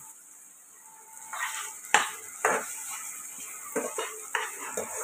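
Steel slotted spoon stirring and scraping chopped onions and ginger-garlic paste frying in oil in a nonstick kadai. It makes a run of irregular scrapes and knocks against the pan, the sharpest about two seconds in, over a light sizzle.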